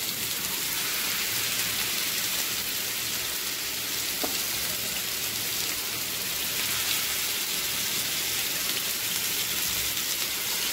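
Seekh kebabs shallow-frying in hot oil in a non-stick frying pan: a steady sizzling hiss of the oil as more kebabs are laid in.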